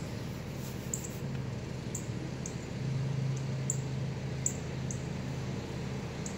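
A steady low hum that grows a little louder about three seconds in, with faint, very short high ticks now and then.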